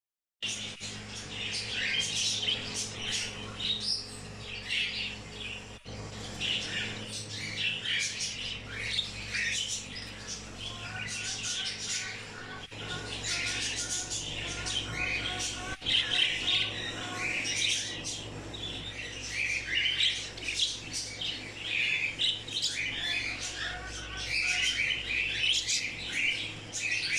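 A flock of small pet birds chirping and calling continuously, many short overlapping high-pitched chirps with occasional squawks, over a steady low hum.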